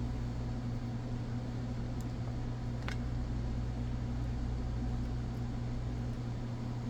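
A steady low hum, with one light click about three seconds in.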